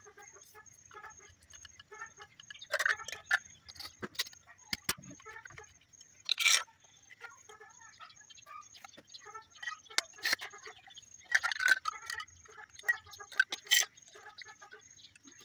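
Plastic impeller and diffuser stages of a submersible pump clicking and clattering as they are handled and slid down the pump shaft, a few sharp knocks standing out among lighter irregular clicks.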